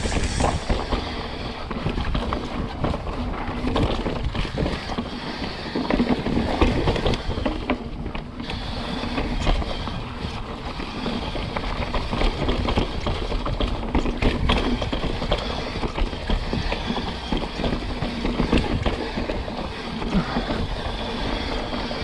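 Mountain bike descending a loose dirt singletrack at speed. The tyres make a continuous rumble on the dirt, with frequent knocks and rattles from the bike over bumps and roots.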